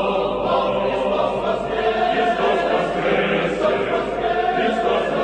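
Church choir singing Orthodox Paschal chant, many voices holding slow, sustained chords.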